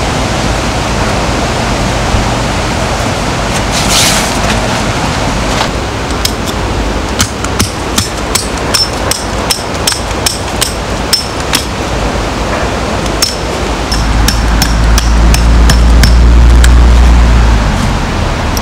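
Metal tent pegs being hammered into the ground: about twenty sharp, ringing strikes at roughly two a second, over the steady rush of a mountain stream. Near the end a low rumble swells up and becomes the loudest sound.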